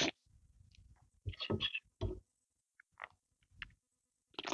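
Close-miked mouth sounds of eating creamy chicken and mushroom soup from a metal spoon: a slurp off the spoon at the start and another near the end, with wet mouth noises and small lip clicks in between.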